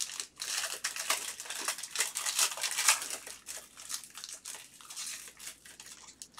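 Foil wrapper of a 2022 Topps Tier One trading-card pack crinkling and tearing as it is pulled open by hand. It is loudest in the first few seconds, then thins to scattered crackles.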